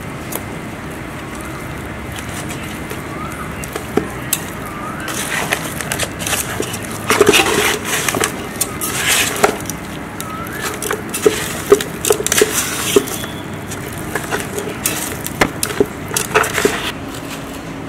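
A hand mixing raw rohu fish pieces with masala, chopped onion and curry leaves in a steel pot: wet squelching and clicks of the fish against the steel. The sounds come in irregular bursts that start about four seconds in and are busiest in the middle.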